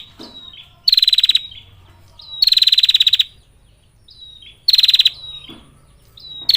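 Female prinia (prenjak) giving its rapid trill ('ngetir'), a call that draws male prinias: three loud, fast-pulsed trills of about half a second to a second each, with soft short chip notes between them.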